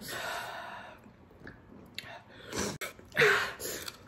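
Breathy sounds from a person: a long exhale in the first second, then a short, sharp, sneeze-like huff about three seconds in.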